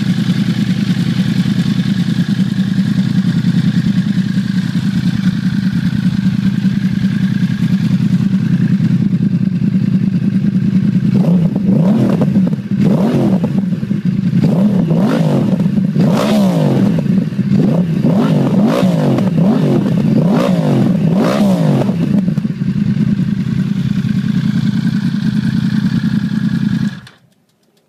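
Yamaha R1 inline-four engine running through a Graves aftermarket carbon-fibre exhaust. It idles, is revved in a string of quick throttle blips for about ten seconds, then settles back to idle. The sound cuts off suddenly near the end.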